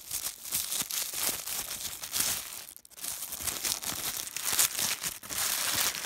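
A thin plastic wrapper bag crinkling and rustling as fingers pull it open and rummage inside, with a brief pause about halfway through.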